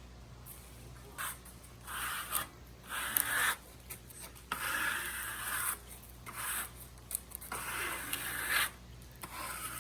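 Rough scraping or brushing strokes against wood, about six of them, each lasting up to a second, with short gaps between, over a faint steady low hum.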